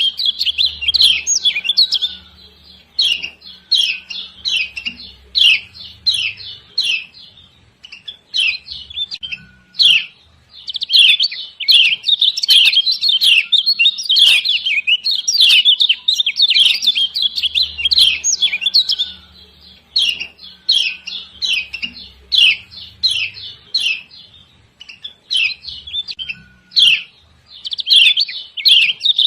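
Kecial kuning (Lombok yellow white-eye), a female, giving rapid, sharp 'ciak ciak' chirping calls. The calls come in runs of several seconds separated by short pauses. This is a lure recording meant to set other white-eyes singing.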